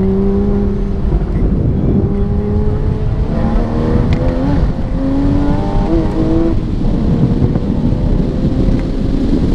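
Sports car engine heard from inside the cabin on an autocross run, repeatedly pulling up in pitch and easing back, with quick pitch jumps near the middle, over steady road, tyre and wind noise.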